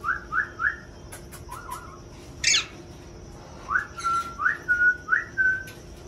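Someone whistling to call parrots down to a food bowl: quick short rising whistles, then rising whistles that end in a held note. A single sharper, higher call comes about two and a half seconds in.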